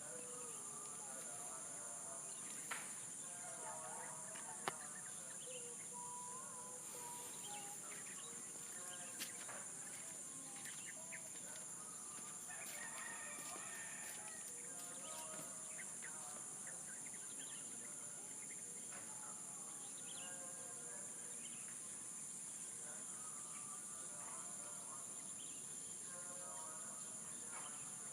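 Steady high-pitched insect drone with many birds chirping and calling over it, and a few sharp clicks in the first ten seconds.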